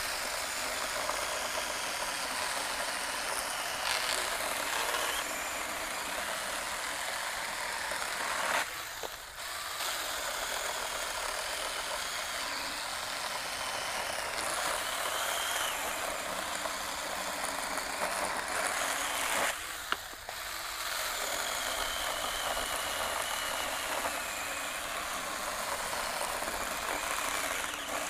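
BeiHong 6-inch 21-volt cordless mini chainsaw running under load, its chain cutting steadily through a log about 3 3/4 inches thick. The sound drops off briefly twice, about nine and twenty seconds in.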